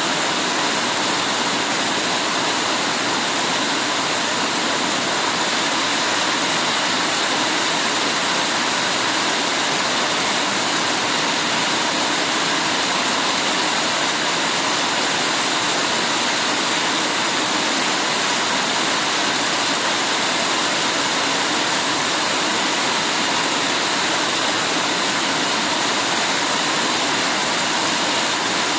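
Heavy rain pouring down, a steady, unbroken hiss.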